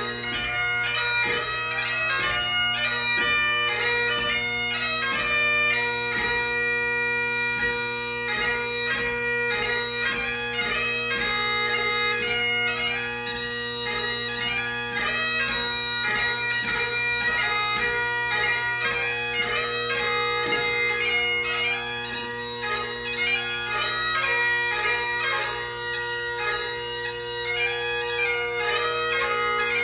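Solo Great Highland bagpipe playing a competition march, strathspey and reel set: steady drones sound under a quick chanter melody.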